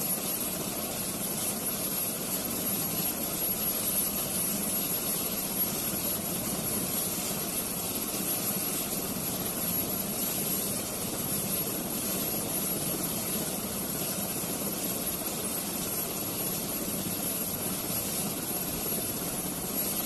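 Helicopter running overhead, a steady unbroken noise of rotor and engine.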